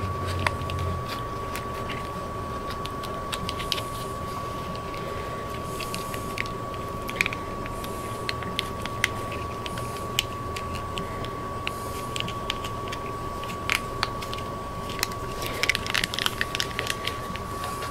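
Scattered small clicks, ticks and rustles of hands handling the ebike's cables and corrugated plastic wire loom at the handlebar, busiest near the end. A steady high tone and a low hum run underneath.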